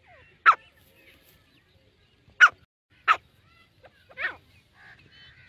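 Grey francolins giving four short, sharp call notes a second or two apart; the last is softer and a little drawn out.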